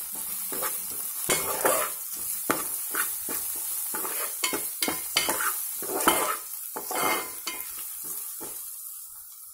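A steel spatula scraping and stirring fried onions and powdered spices around a metal pan, over a steady frying sizzle. The scrapes come about one or two a second and thin out near the end.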